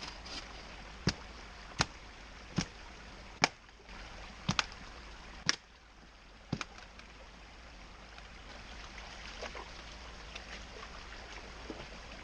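A run of seven sharp knocks, roughly one a second, in the first seven seconds, over the steady sound of a small creek running.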